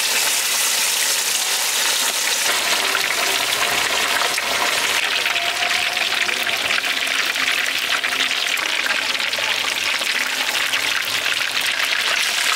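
Whole butterflied chicken deep-frying in a large pan of hot oil, just dropped in, the oil sizzling and crackling steadily.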